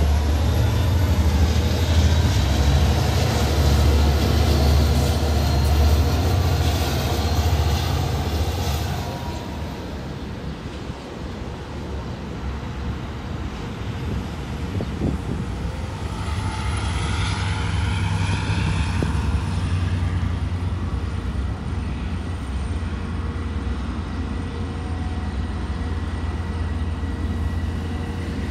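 Street traffic with city buses: a heavy low rumble of vehicles, loudest over the first nine seconds and then quieter. About two-thirds of the way through, a whine rises and falls for a few seconds.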